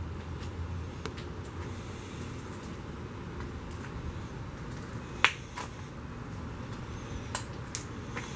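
Steady low background noise with a few short, sharp clicks; the loudest comes a little past five seconds in, with fainter ones near the end.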